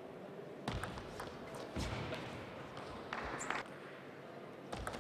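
A few scattered knocks from a table tennis ball and players' shoes on the court, over a steady hall hum, with a short burst of crowd noise about three seconds in.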